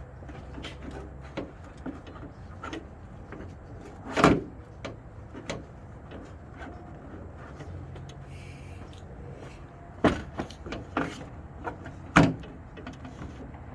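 Scattered clicks and knocks from handling hardware, with two louder knocks, one about four seconds in and one near the end, over a low steady hum.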